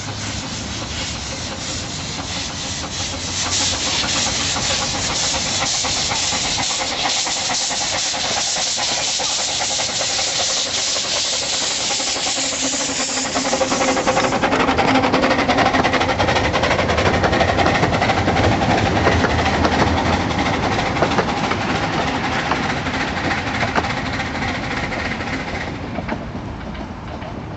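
15-inch gauge steam locomotive blowing off steam in a loud, steady hiss. About halfway through it grows louder and fuller as the locomotive works, then eases near the end.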